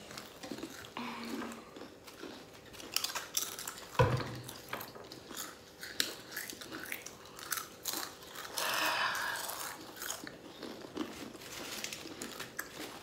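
People crunching and chewing Doritos Flamin' Hot tortilla chips, with many short crisp crunches and a single knock about four seconds in.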